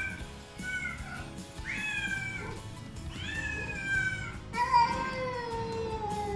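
Feral cats meowing over and over, begging for wet food. There are about five drawn-out meows, each sliding slightly down in pitch; the last one, about four and a half seconds in, is the longest and lowest.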